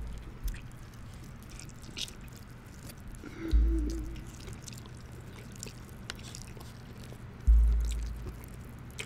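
Close-up eating sounds: chewing with small wet, sticky clicks and drips of syrup-soaked food. Two deep, low drum beats land about four seconds apart, each fading slowly.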